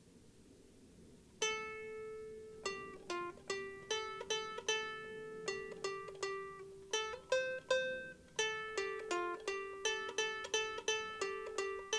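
Martin S-1 soprano ukulele being played: after about a second and a half of quiet, a run of plucked notes and strummed chords, a few per second, each ringing briefly.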